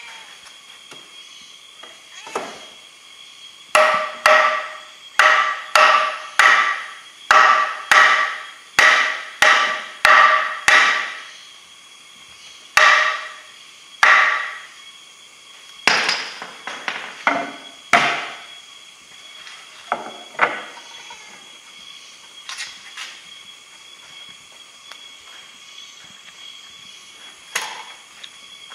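Hammer striking the boards of a wooden beehive box: a quick, even run of about fourteen ringing blows at roughly two a second, then a couple more, then a few scattered knocks and taps.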